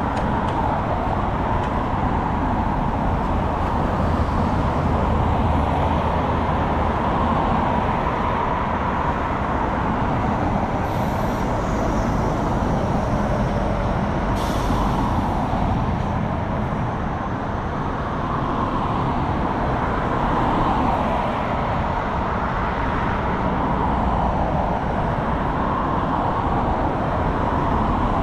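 Steady road and traffic noise heard while riding an electric scooter along a city road, with two brief hisses near the middle.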